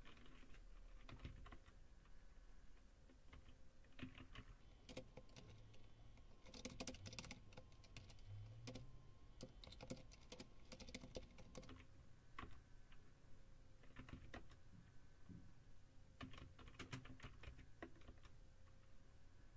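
Faint computer keyboard typing in short bursts of key clicks, with pauses between them as commands are entered.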